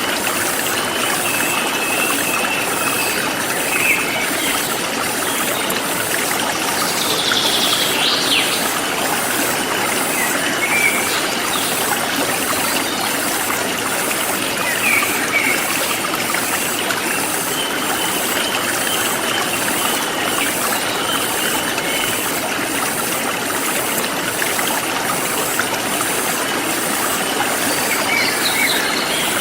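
Forest stream flowing steadily, with birds chirping now and then, most clearly about seven seconds in. An insect chorus pulses evenly in the high range.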